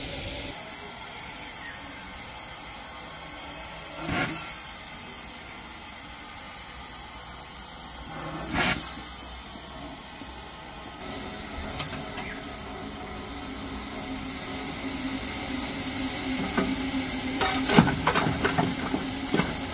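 Miniature 12¼ inch gauge steam locomotive hissing steadily as steam escapes from it, with two short, louder blasts of steam about 4 and 8 seconds in. The hiss grows stronger in the second half, and several sharp metallic knocks come near the end.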